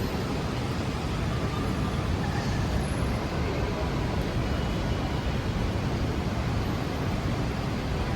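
Steady city street traffic in the rain: the low rumble of passing cars, buses and trucks under an even hiss.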